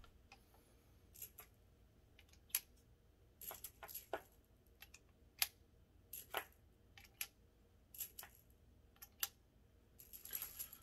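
Metal cartridges clinking as they are taken from a box and slid into the chambers of a double-action revolver's swung-out cylinder: an irregular run of sharp metallic clicks and clinks, with a denser jangle near the end.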